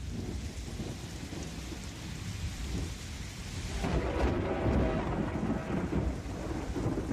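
Steady rain with rolling thunder, the low rumble swelling from about four seconds in.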